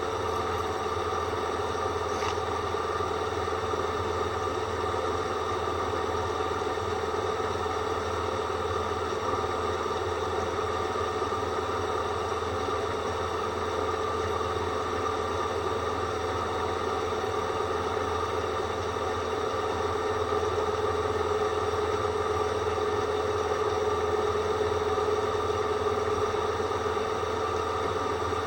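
Drill running steadily with a dull bit that whistles, a held high-pitched tone over the motor's hum, swelling slightly near the end.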